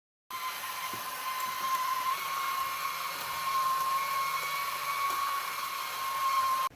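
A small motor running steadily with a high-pitched whine. It starts suddenly just after the beginning and cuts off abruptly near the end.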